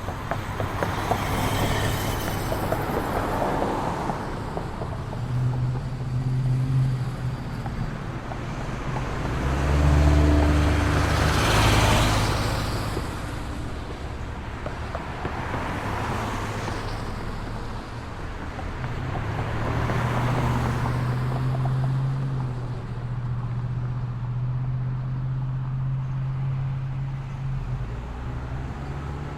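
Road traffic: cars passing one after another, each a swell of tyre and engine noise that rises and fades away. The loudest pass comes about a third of the way in. A low steady engine hum runs underneath for long stretches.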